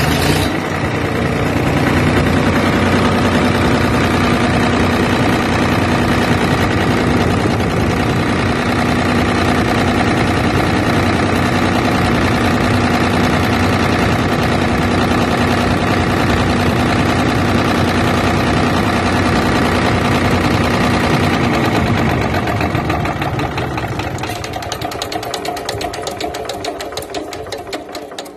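Lister diesel engine, just started with its starting handle, running steadily. The sound grows quieter over the last several seconds.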